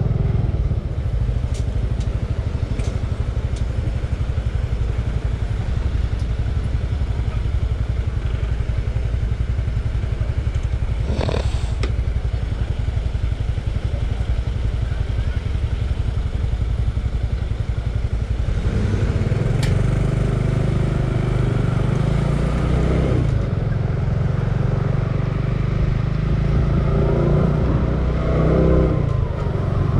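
Motorcycle engine running through town streets, steady and low, with its note climbing and dropping in two spells in the second half and a brief sharp sound about eleven seconds in.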